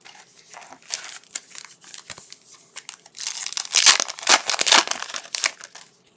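Foil trading-card pack wrapper crinkling and tearing as it is opened or crumpled by hand, a dense crackle that grows loudest in the second half before stopping.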